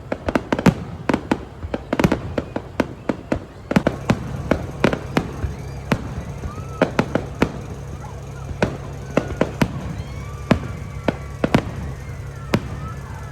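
Fireworks display: a dense run of sharp bangs and pops for the first few seconds, then single bangs spaced further apart over a steady low hum.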